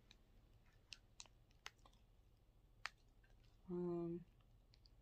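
Faint scattered clicks and ticks from handling a boxed ring light and its packaging, then a short, steady, low hum-like tone lasting about half a second near the end.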